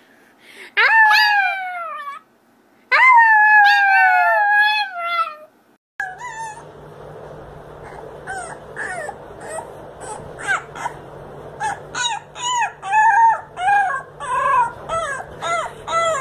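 A Chihuahua howls twice, each howl a long wail falling in pitch. Then a beagle puppy gives a quick run of short, high-pitched cries over a steady low hum.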